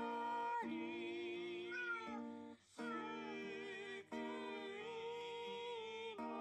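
A recorded song playing back: a held, wavering sung melody over steady accompaniment, with short breaks between phrases.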